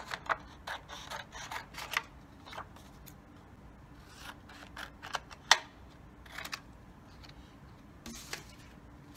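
Scissors snipping through paper: a quick run of short snips in the first two seconds, then scattered single snips, the sharpest about five and a half seconds in.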